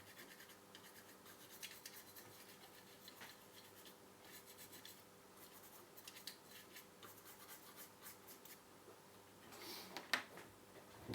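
Faint, irregular scratching and rubbing, with a louder rustle and knock about ten seconds in: hands working on and handling a TV power supply circuit board.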